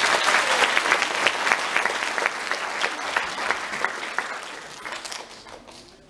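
Audience applauding, the clapping gradually thinning and fading toward the end.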